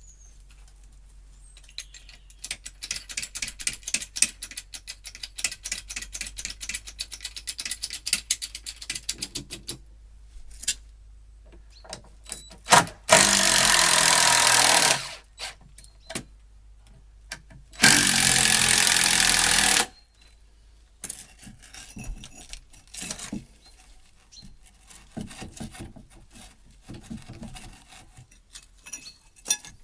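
Power tool work on a timber arch former: a rapid clatter of fast repeated strikes for several seconds, then two short, loud runs of a cordless drill-driver, each about two seconds, followed by scattered knocks of timber and tools.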